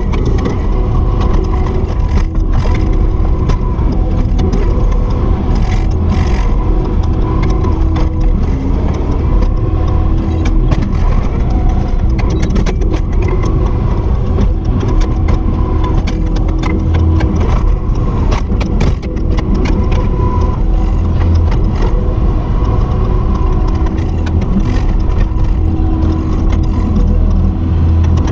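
Kubota SVL75-2 compact track loader's diesel engine running steadily while working, with scattered clanks and scrapes throughout.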